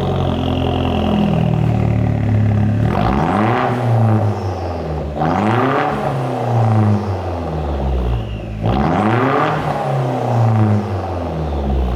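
Vauxhall Adam S engine running through its new custom cat-back exhaust with an Akrapovic tip, revved three times, the pitch rising and falling with each blip, then settling back between revs.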